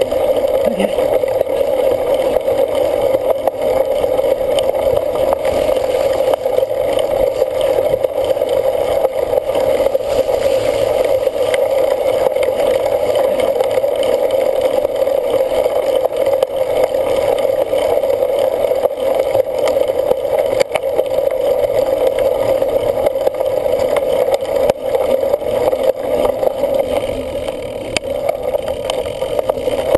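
Steady rushing noise of a bicycle being ridden hard off-road: wind and tyre noise that holds at a constant level throughout.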